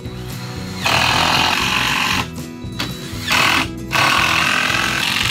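Cordless impact driver hammering long screws through a wood strip into floor joists, in three runs: a long one about a second in, a short one past the middle, and another starting near the end.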